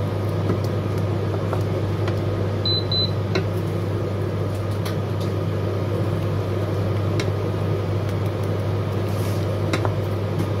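Induction hob humming steadily, with two short high beeps about three seconds in as its power setting is raised. A wooden spoon stirs thick risotto in a stainless steel pot, with a few light taps against the pot.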